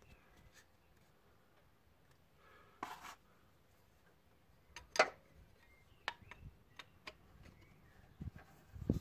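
A few scattered clicks and knocks of hand tools and metal parts being handled. The loudest is a sharp click about five seconds in, with a double knock about three seconds in and small ticks near the end.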